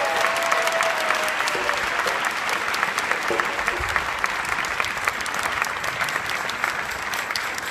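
Audience applauding steadily with dense clapping, while the last held note of the dance music dies away in the first second.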